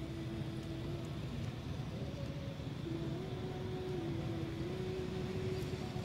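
A motor running steadily, a continuous hum whose pitch shifts slightly up and down a few times over a low rumble.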